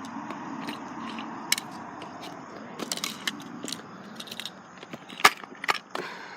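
Scattered clicks and crunches of close handling or steps over the steady rush of creek water, with one sharp click about five seconds in.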